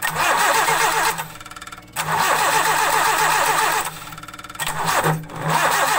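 Engine's starter motor cranking in four repeated bursts of different lengths, with pauses between them, on a weak battery that the owner calls half dead.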